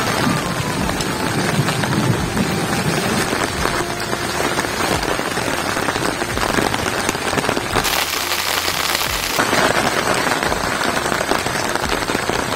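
Heavy rain falling, a dense patter of drops on leaves and nearby surfaces. It turns briefly hissier for a second or so about eight seconds in.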